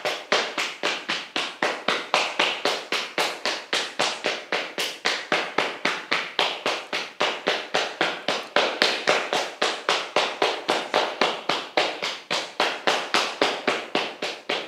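Open palms patting the sides of the hips and buttocks in quick, even slaps, about four to five a second, a self-massage tapping meant to release tension in the hips.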